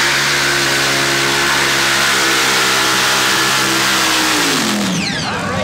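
Modified tractor-pulling tractor's engine running at a steady high note, its pitch falling away sharply near the end as the tractor passes.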